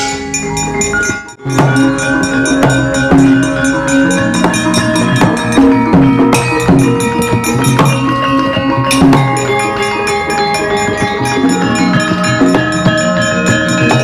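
Javanese gamelan playing: bronze metallophones and gongs ringing over quick, repeated kendhang drum strokes that drop in pitch. The music dips briefly about a second in, then carries on steadily.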